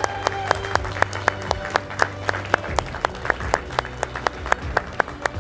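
Audience applauding, with crisp individual claps close by at about four or five a second.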